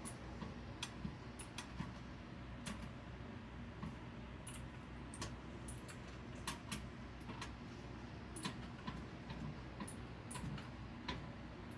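Light, irregular clicks and taps of small parts and tools being handled during a computer assembly, about one or two a second, over a faint steady hum.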